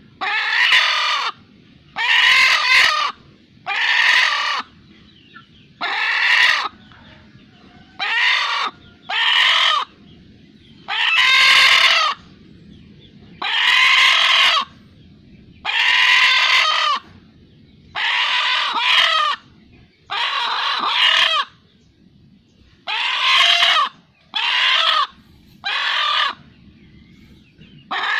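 A chicken giving the same odd-sounding squawking call over and over, about one call every two seconds, sometimes two in quick succession.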